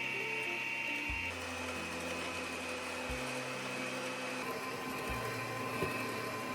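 Electric mixer whipping egg whites, a steady motor whir. Soft background music plays underneath.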